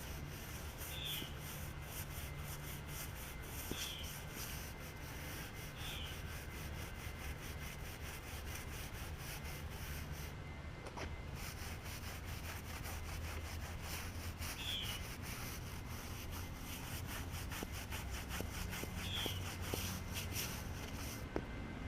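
Stiff scrub brush scrubbing mud off the sidewall of a motorcycle tire: steady back-and-forth rubbing strokes.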